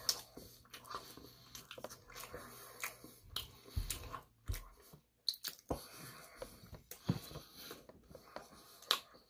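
Chewing of battered sweet and sour chicken, with scattered short clicks of the fork against the metal plate. There are two low thumps about four seconds in.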